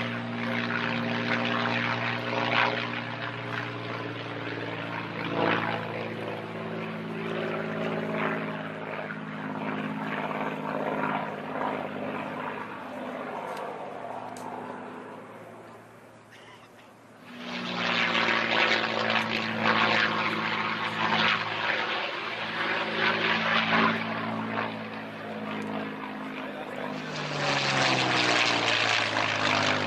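P-51D Mustang's supercharged Packard Merlin V-12 engine and propeller running at power in aerobatic flight overhead. The drone fades almost away past the middle, comes back loud, and drops in pitch near the end as the aircraft passes.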